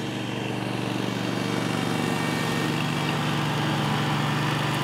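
Engine of a Spider remote-controlled slope mower running steadily.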